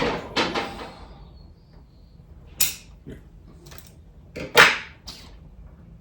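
Handling noises from bonsai wiring: a few short, sharp clacks and rustles of wire and hand tools, the loudest a little over two-thirds of the way through.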